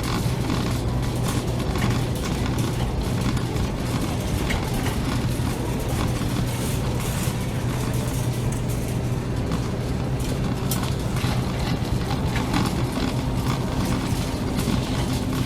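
Supermarket ambience: a steady low hum under a continual scatter of small clicks, knocks and rattles.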